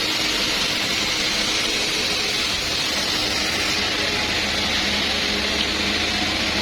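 Sawmill wood saw running steadily, an even, continuous machine noise with a strong hiss and a faint low hum.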